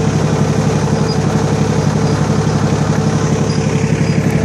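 A vehicle engine running steadily, a low rumble with a fast, even pulse.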